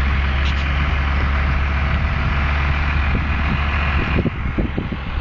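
Diesel tractor and loader engines running steadily close by, a strong low drone under a rushing hiss. About four seconds in the steady drone falls away into uneven low rumbling.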